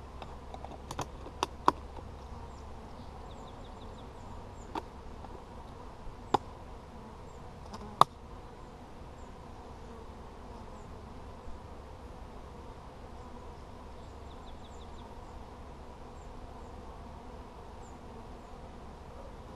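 Honey bees buzzing steadily around an open hive, with a handful of sharp clicks and knocks from hive parts being handled in the first eight seconds, the loudest about eight seconds in.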